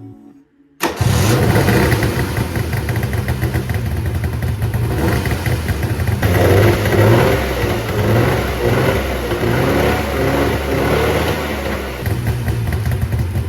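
Subaru R-2's air-cooled 360cc two-stroke twin engine starts up suddenly about a second in and keeps running, a little louder around the middle.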